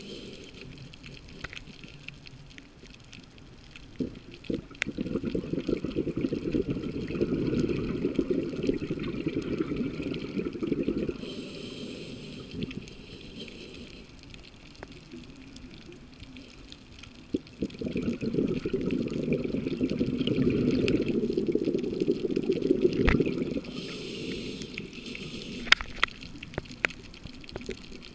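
Scuba diver breathing through a regulator underwater: two long exhalations of bubbling, each followed by a shorter hissing inhalation, with scattered sharp clicks.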